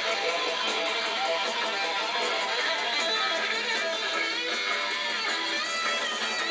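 Background music with guitar, steady throughout.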